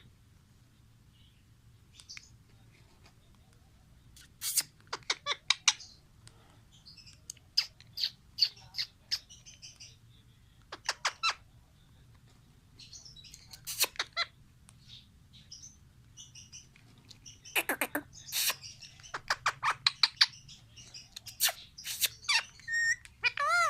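Pet parrots chirping and squawking: short, sharp calls come in scattered clusters and grow busiest in the last few seconds.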